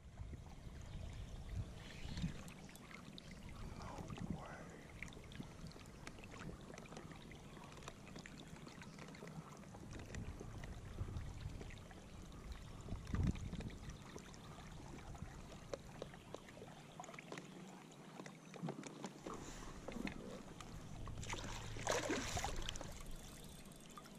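Water lapping and trickling around a kayak while a fish is fought on rod and reel, with a louder splash near the end as a landing net scoops a fluke (summer flounder) out of the water.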